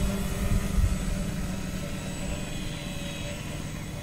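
Electric motors and propellers of an RC tricopter with a fixed-wing airfoil in flight: a steady whine of several pitches that slowly fades as the craft flies away.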